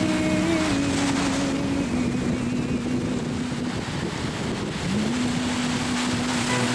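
Sea surf washing over rocks and sand, a steady rushing wash, under a slow ballad's held notes; one note slides up and holds about five seconds in.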